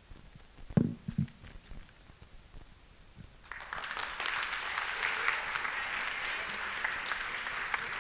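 Audience applauding, the clapping starting about three and a half seconds in and continuing; before it, a brief low thump about a second in.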